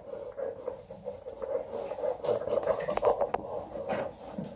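Hands taking hold of and handling an aluminium drink can on a tabletop, with a few light clicks and scratches about two to three seconds in, over a steady low hum.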